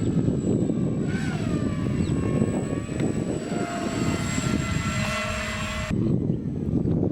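Small electric motor spinning a propeller on a homemade remote-control plane, its whine wandering up and down in pitch over a heavy low rumble. The whine cuts off suddenly about six seconds in while the rumble carries on.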